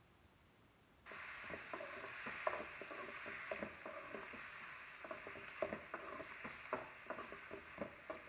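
Chopped tomatoes, onions and garlic sizzling in oil in a kadai while being stirred, with frequent scrapes and knocks of the stirring utensil against the pan. The sizzle starts suddenly about a second in.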